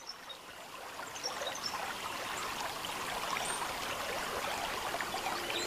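Rushing, splashing water with fine crackling splashes, fading up from silence and growing slowly louder.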